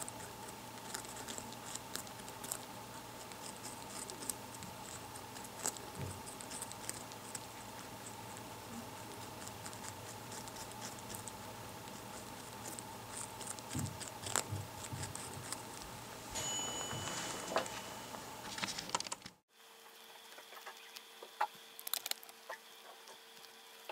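Two baby rabbits nibbling a raw carrot: many quick, faint crisp clicks of gnawing and chewing, with the sound cutting out briefly near the end before the chewing clicks go on.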